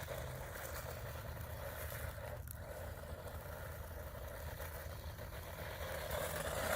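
Small electric RC car driving, its motor whining and tyres running over the ground at a distance, getting louder near the end.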